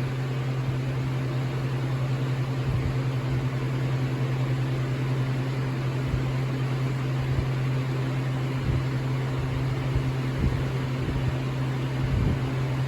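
Steady low electrical hum under an even hiss, with a few faint soft low bumps; no alarm beeps.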